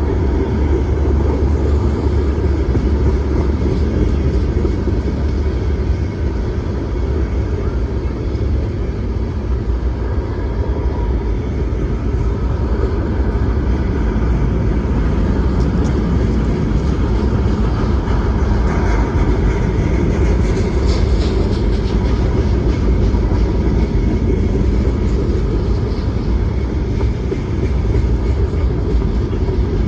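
CSX freight train rolling past at close range: a steady, loud rumble of steel wheels on the rails with no let-up. A light run of clicking joins in about two-thirds of the way through.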